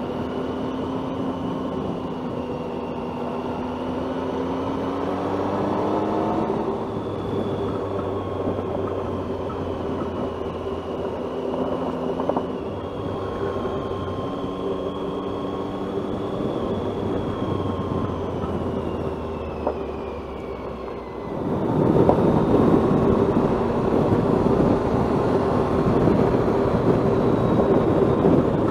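Motorcycle engine running on a gravel road, its pitch rising and falling with throttle and gear changes, over steady tyre and wind noise. About three quarters of the way through, the noise jumps suddenly louder and stays there.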